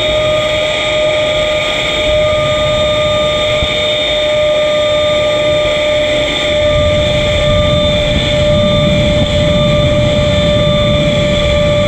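Foam delta-wing model plane's motor and propeller whining at a steady pitch, with wind buffeting the microphone as a low rumble that grows louder about two-thirds of the way through.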